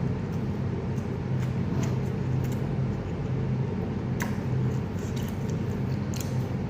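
Eating sounds: a few short clicks from a person chewing, over a steady low hum.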